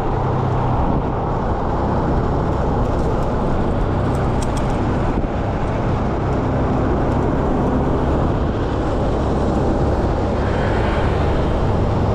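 Steady wind rush and road noise from riding a motor scooter in traffic, with the scooter's engine running evenly underneath.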